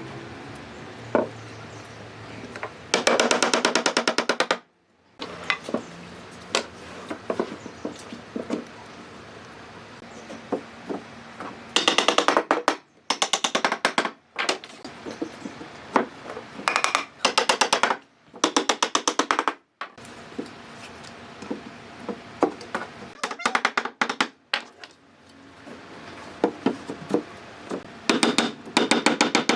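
Woodworking noise: scattered knocks and taps on wood, broken by several short bursts of a very rapid mechanical rattle lasting about a second each.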